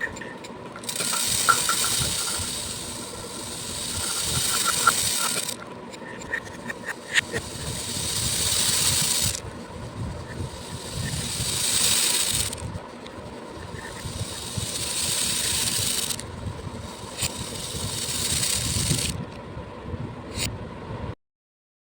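Beads poured in repeated streams of a few seconds each, each pour a rising and falling rattling hiss, with scattered clicks of single beads between pours. The sound cuts out completely for a moment near the end.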